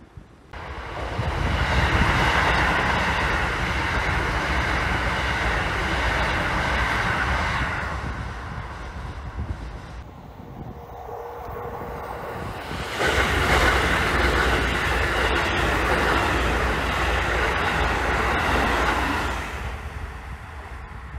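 Keisei electric commuter train running past on the rails, a loud rushing rumble of wheels on track that swells about half a second in, eases off for a few seconds partway through, then swells again before dropping away near the end.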